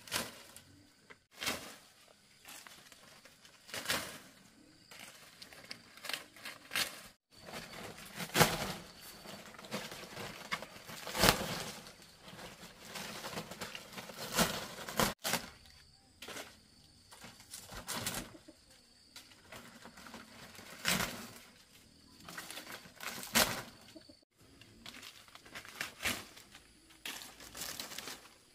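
Palm fronds rustling and crackling as they are handled and laid on a roof, with sharp cracks as leaf stems are chopped with a knife, irregularly every second or two.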